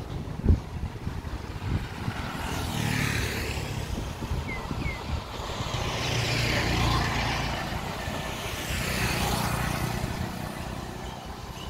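Road traffic going past: three vehicles in turn, each swelling and fading, over a steady low rumble. A sharp thump about half a second in.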